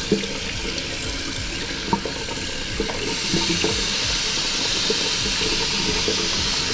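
Tap water running into a hand-wash basin through a K&N cotton-gauze air filter, flushed from the clean side to wash out the dirt loosened by the cleaner. The flow gets louder about three seconds in, with a few small knocks and splashes.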